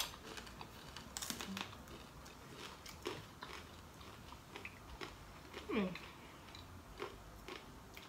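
Biting and chewing of crisp, over-cooked vegan bacon slices, heard as a few scattered crunches. A short falling hum of a voice comes about six seconds in.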